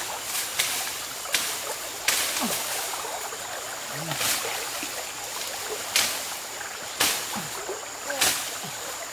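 Stream water running steadily, with several short sharp cracks and rustles from leafy bamboo branches being pulled and snapped while a person wades.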